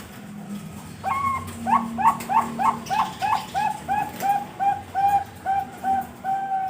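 Perkutut (zebra dove, Bangkok-bred) cooing. About a second in it starts a quick run of about fifteen short coos, roughly three a second, each rising then dropping in pitch. The later notes are longer and steadier.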